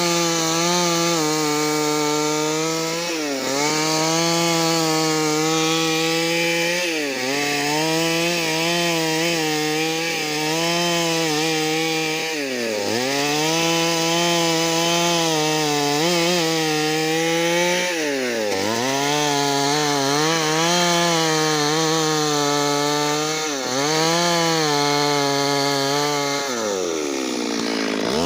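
Stihl MS 382 two-stroke chainsaw running at full throttle, cutting wood. Its high steady note dips sharply and recovers about every four to six seconds.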